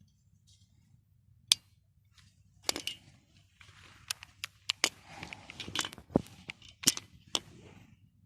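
Sharp metallic clicks and clacks of a Beretta 92FS 9mm pistol being handled, about a dozen in all: a single click, then a pair, then a quicker run of clicks over a faint rustle.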